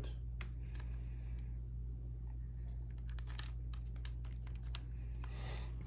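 Light clicks and soft rustles of the charger and its packaging being handled, busiest about three seconds in and again near the end, over a steady low hum.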